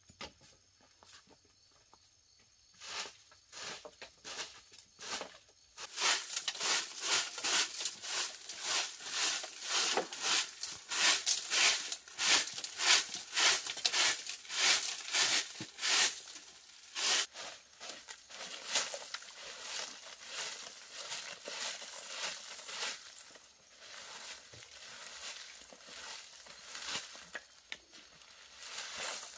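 A straw broom sweeping a dirt floor scattered with dry bamboo leaves and chips, in repeated brushing strokes about two a second. The strokes start a few seconds in, are loudest through the middle and grow softer toward the end.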